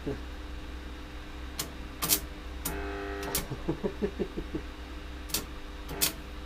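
Arc welder humming, with about six short sharp crackles as the electrode is struck on the metal. A couple of the strikes set off a brief buzz.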